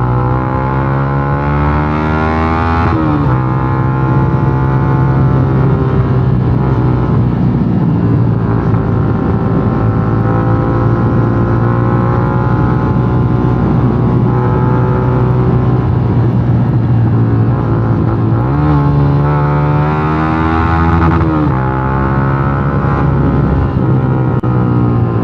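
Yamaha Sniper 150's single-cylinder engine running through a gutted stock exhaust ('kalkal pipe'), loud and steady, its pitch changing around three seconds in and again in a stretch near the end.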